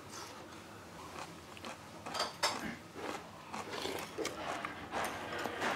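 Metal spoons and chopsticks clinking and scraping irregularly in earthenware ttukbaegi pots of bone soup, with the soft sounds of people eating.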